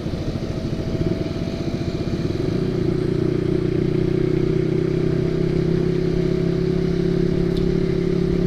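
Single-cylinder engine of a Honda CB150R with an aftermarket racing silencer, ridden and heard from a helmet-mounted camera. It runs unevenly and pulsing at first, then after about two and a half seconds settles into a steady note at constant speed.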